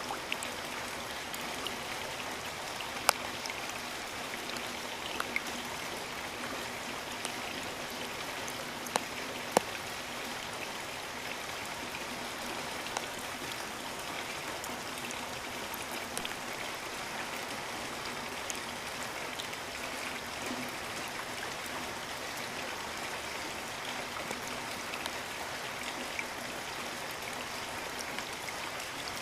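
Steady rain falling, an even hiss, with a few louder single drops striking close by now and then.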